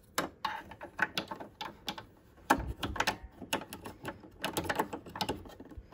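Irregular small clicks and taps as a sewing machine's drop-in bobbin case is handled and seated back into its housing under the needle plate, with the strongest click about two and a half seconds in.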